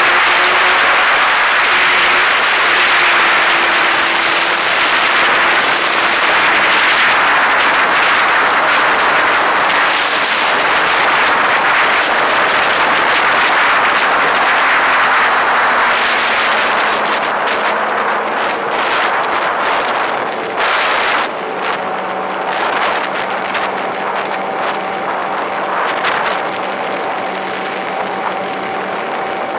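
A vehicle on the move: wind and road noise rushing over the microphone, with a steady engine hum coming through in the second half.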